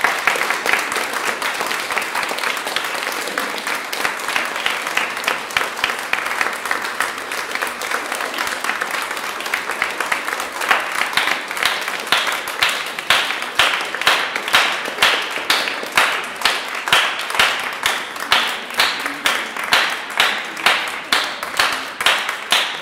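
Audience applauding. About halfway through, the scattered clapping turns into rhythmic clapping in unison, a steady beat a little under two claps a second.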